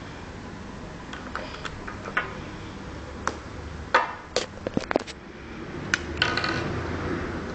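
Scattered small clicks and knocks, with a quick run of sharper clicks about four to five seconds in.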